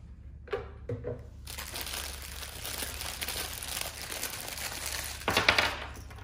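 Packaging being unwrapped: paper or plastic wrapping crinkling and rustling continuously, loudest briefly near the end.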